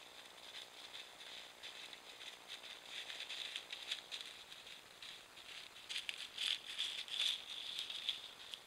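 A raccoon walking through dry fallen leaves: quick crackling, rustling footsteps that grow louder as it comes close, loudest about two-thirds of the way through.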